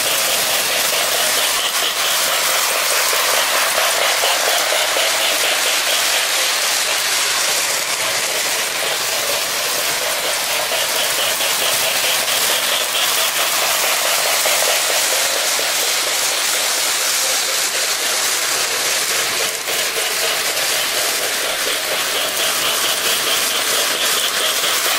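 Lionel O-gauge Hudson model steam locomotive and its passenger cars running on FasTrack: a steady whirring rush of the electric motor and metal wheels rolling on the track.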